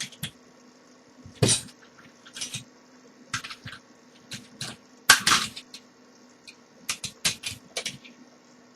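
Metal clinks and knocks of a mortice lock and lock-picking tools being handled and set down, a dozen or so irregular clatters, the loudest about a second and a half in and again just past five seconds.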